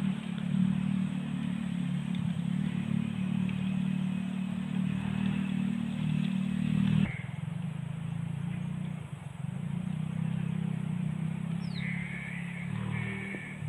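A steady low motor-like hum, with an abrupt change about seven seconds in. Near the end a faint high chirping joins it.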